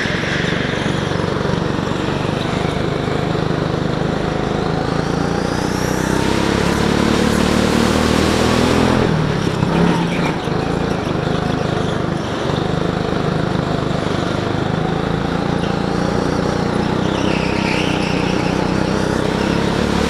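Go-kart engine running hard, heard from on board the kart, its pitch rising on the straights and dropping for the corners. There are brief tyre squeals near the end.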